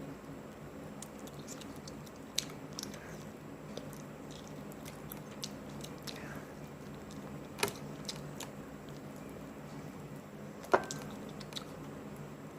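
Close-up chewing and biting of crispy fried chicken: wet mouth clicks, smacks and crunches at irregular intervals, the sharpest about eleven seconds in.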